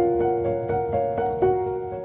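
Background music: an instrumental melody of pitched notes, a new note about four times a second.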